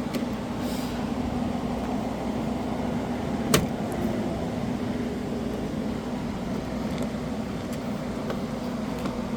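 A steady low hum runs throughout, with one sharp click about three and a half seconds in, typical of a plastic part or tool knocking during work inside a car door panel.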